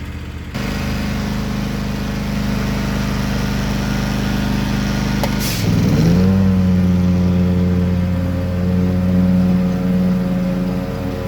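John Deere X350 riding lawn tractor's engine running steadily while mowing, then speeding up with a rising pitch about six seconds in, just after a short click, and holding at the higher speed.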